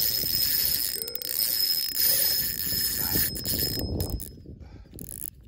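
Fishing reel cranked as a hooked fish is fought: a fast, ringing, ratchet-like clicking and whirring with a steady high tone, plus rod-handling rustle, fading out about four seconds in.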